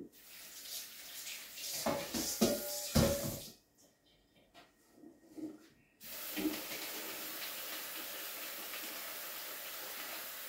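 Kitchen tap water and clatter at the sink: a few knocks of dishes or pots in the first few seconds, then the tap comes on suddenly about six seconds in and runs in a steady hiss until it is shut off.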